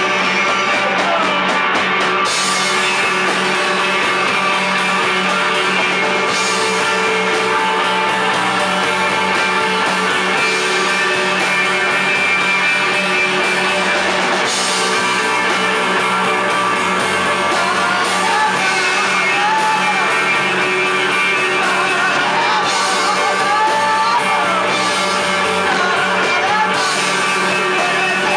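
Live stoner rock band playing loudly: electric guitar, bass guitar and drum kit, with cymbals dropping in and out between sections, and a woman singing over the band, most clearly in the second half.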